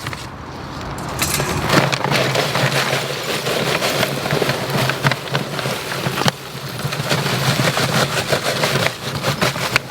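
A steady low engine-like hum, like a motor running at idle, with scattered clattering and knocks over it.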